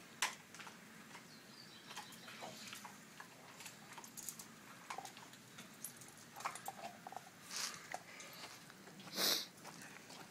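A dog gnawing on a bone: faint, scattered clicks and scrapes of teeth on bone. Twice in the second half there is a short, louder breathy rush, the louder one near the end.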